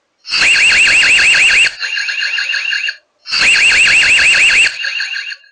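Built-in siren of an Ezviz eLife CS-BC1C security camera: a loud electronic alarm warbling rapidly, about five sweeps a second. It sounds in two bursts of about a second and a half each, with a quieter lingering tone after each burst. The camera can be set to sound this alert when it detects motion.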